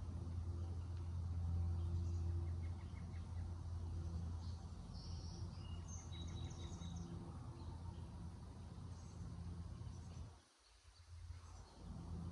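Outdoor backyard ambience: a steady low hum with faint bird chirps and short trills around the middle. The hum drops away for about a second near the end.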